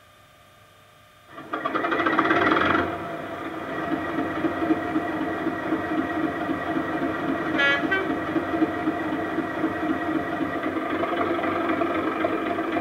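Simulated Class 37 English Electric diesel sound from a model locomotive's Loksound Select decoder, played through an EM1 speaker with a bass-reflex enclosure. A sudden loud engine start comes about a second in and settles within a couple of seconds into a steady idle, with a brief higher chirp midway.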